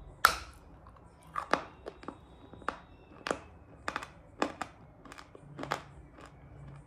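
Shale being bitten and chewed, crunching in the mouth: one sharp crack about a quarter of a second in, the loudest, then about ten separate crunches spread over the rest.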